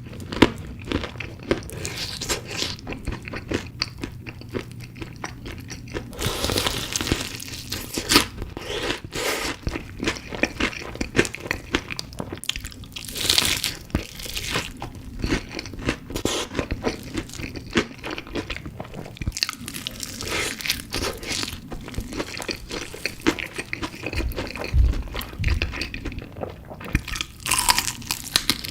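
Close-miked chewing and crunching of chicken pieces in spicy sauce, with repeated crisp bites and wet mouth sounds, in an irregular rhythm.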